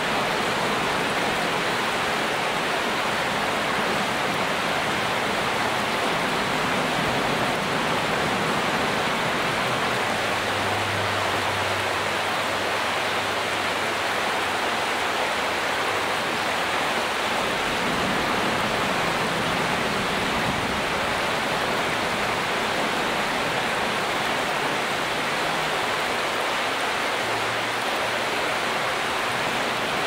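Steady rushing of water flowing in a shallow stream, an even, unbroken noise.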